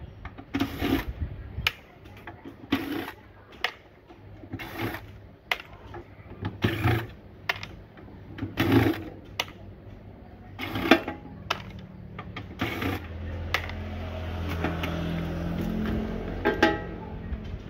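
Makita cordless drill spinning a screwdriver bit on the screws of a welding machine's sheet-metal cover, in short repeated bursts of the trigger. Near the end it runs steadily for about four seconds.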